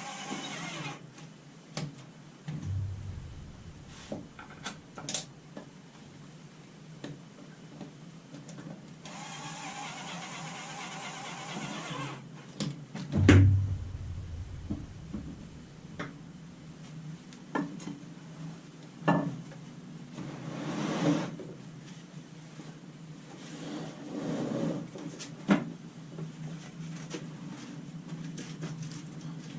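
Hands working on a battery pack: scattered knocks, clicks and thuds of parts and tools being handled, the loudest a heavy thud about 13 seconds in. Twice a small electric motor whirs steadily, briefly at the start and again for about three seconds from around 9 seconds, like a cordless driver running screws.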